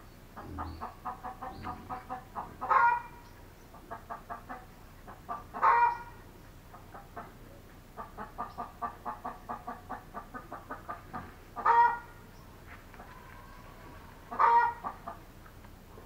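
Free-range chicken cackling: runs of quick clucks, each run broken by a loud squawk, four squawks about three seconds apart.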